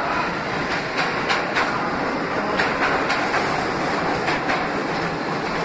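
R62 subway cars rolling past along the platform: a steady rumble of wheels on rail, broken by an uneven series of sharp wheel clacks.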